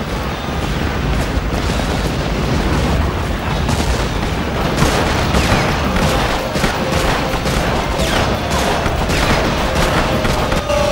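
Battle sound effects: a continuous rumble of exploding artillery shells and rifle fire, with many sharp shots close together from about four seconds in.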